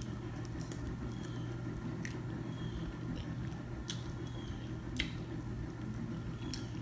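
Close mouth sounds of eating seafood: chewing and wet lip-smacking, with a few sharp clicks about 2, 4 and 5 seconds in, over a steady low hum.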